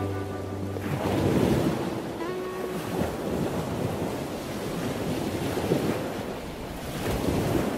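Ocean surf breaking and washing up on a sandy beach, swelling loudest about a second in.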